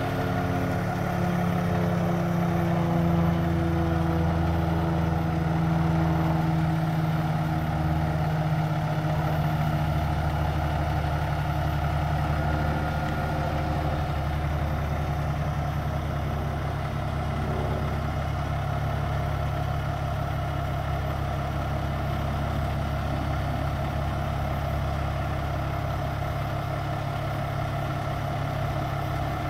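Diesel engine of a heavy semi tractor idling, a steady low running sound whose pitch wavers slightly over the first several seconds and then holds even.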